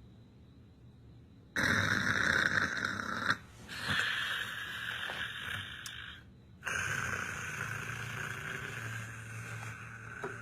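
A person snoring: three long snores with short breaks between them, the first starting about a second and a half in.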